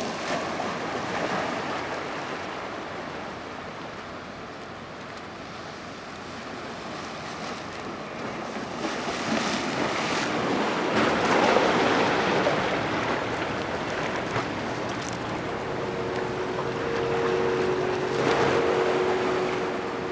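Waves washing in with wind, as a steady rushing wash that swells twice. A steady two-note hum comes in near the end.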